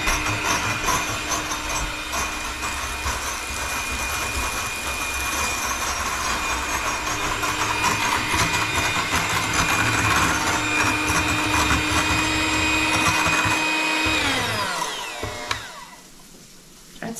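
Electric hand mixer running steadily at high speed, its beaters whipping egg whites in a glass measuring cup. Near the end the motor is switched off and its whine slides down in pitch and dies away.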